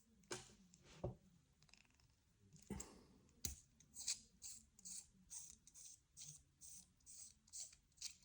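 Faint handling of a small machined titanium pen being taken apart by hand: a few light taps and knocks, then a run of short scratchy sounds about two to three a second as the threaded parts are unscrewed.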